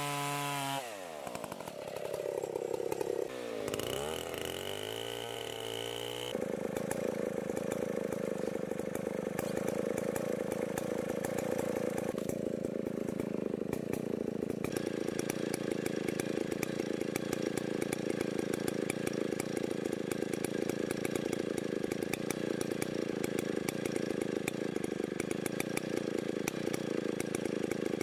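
Two-stroke chainsaw working on a walnut root ball: its engine pitch drops sharply in the first second and swings up and down a few seconds in, then it runs steadily under load, cutting into the hard, dirty root wood for the rest of the time.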